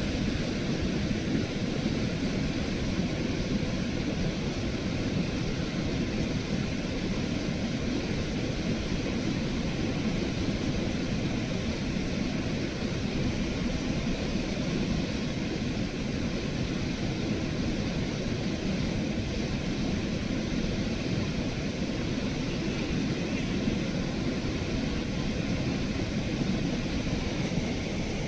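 Steady wind noise on the microphone: a low, fluttering rumble with a hiss above it.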